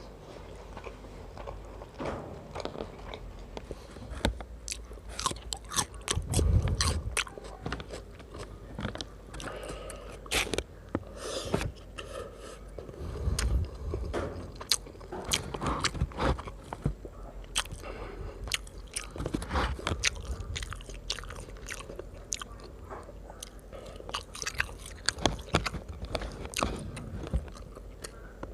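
Close-miked mukbang eating of roasted chicken rice: steady chewing and biting, with many sharp crunchy clicks throughout and louder bursts of chewing now and then.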